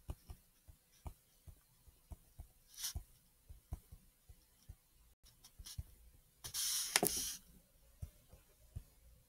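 Stylus tapping and scratching on a touchscreen as words are handwritten: a string of light, irregular taps. A short hiss comes near three seconds in, and a louder one about a second long comes about two-thirds of the way through.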